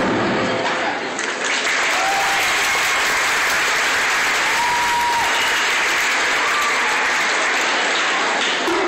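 Audience in gymnasium bleachers applauding after a drumline piece, a steady wash of clapping, with a few short high-pitched calls over it around the middle.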